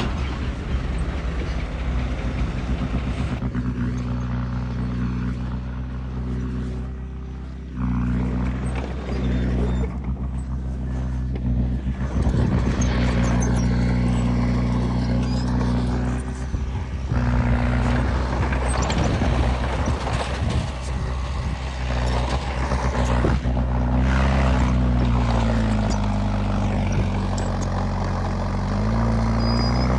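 Heavy diesel engine of earthmoving machinery running steadily under work, with several abrupt changes in loudness and its pitch dipping and rising twice near the end.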